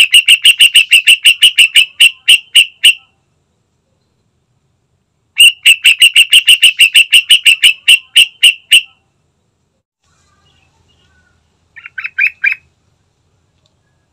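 Yellow-vented bulbul (trucukan) giving rapid runs of loud, sharp chattering notes, about six a second. There are two runs of some three seconds each, then a short burst of four notes near the end.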